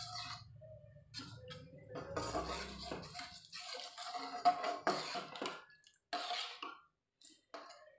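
A metal spatula scraping and knocking around the inside of a metal kadhai as a thin curry gravy is stirred hard, in irregular strokes, with a brief ring from the pan on some of them. The strokes thin out and stop near the end.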